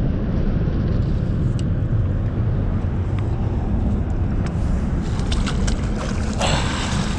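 Steady low rumble of wind buffeting the microphone, with a few light knocks and a brief hissing rush about six and a half seconds in.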